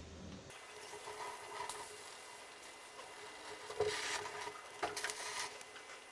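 Brinjal (eggplant) skin crackling as it chars directly over a gas burner flame. Metal tongs click against it as it is gripped and turned, sharpest about four and five seconds in.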